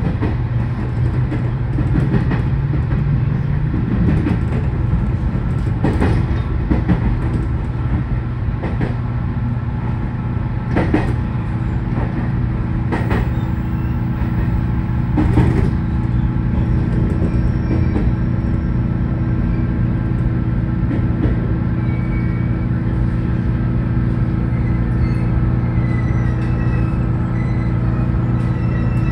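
JR Kyushu electric train running on the Kagoshima Main Line, with a steady electrical hum. Wheel clicks over rail joints come further and further apart in the first half and then stop, as the train slows on its approach to the terminus.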